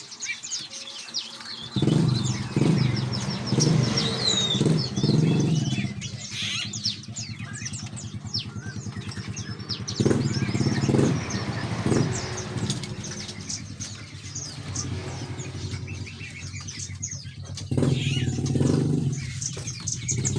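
Many caged songbirds chirping and twittering busily. A small engine runs underneath from about two seconds in, growing louder three times.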